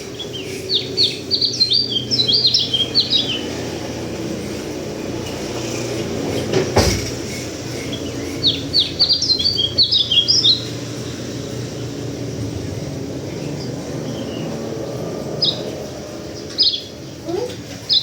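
White-eye (pleci) singing: two bursts of rapid, high chirping notes, each about three seconds long, then a few single chirps near the end, over a steady low background hum. A single sharp click comes between the two bursts.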